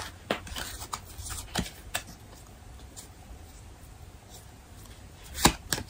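Tarot cards being handled and shuffled: a few scattered soft card clicks, then a quick run of card snaps near the end.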